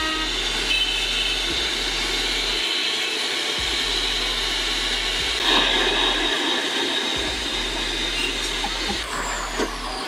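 A small electric motor running steadily, with a brief swell in noise about five and a half seconds in.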